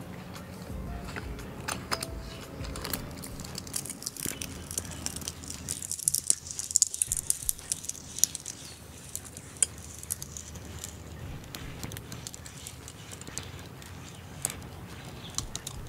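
Hand-turned stainless steel sevai press being screwed down on a load of steamed rice dough, its metal screw and plate giving off irregular light clicks and rattles. The clicks are thickest about six to seven seconds in.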